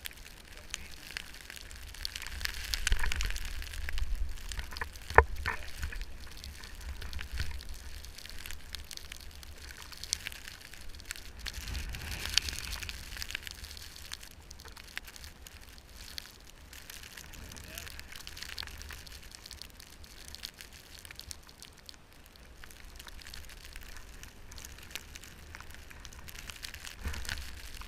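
Crackling hiss of wind and snow against the microphone, with a low wind rumble and scattered sharp clicks.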